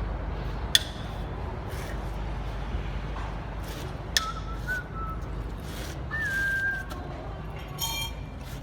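Short whistled notes over a low steady rumble, with two sharp knocks about three and a half seconds apart and a brief ringing clink near the end.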